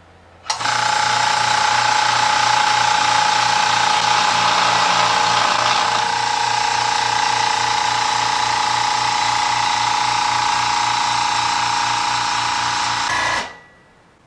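Makita 3-gallon quiet-series electric air compressor starting up about half a second in and running steadily with an even pulsing hum, then shutting off abruptly near the end.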